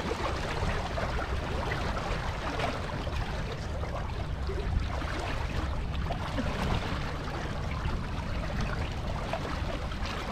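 Water rushing and splashing along the hull of a MacGregor 26X sailboat running downwind, with a steady low rumble of wind on the microphone.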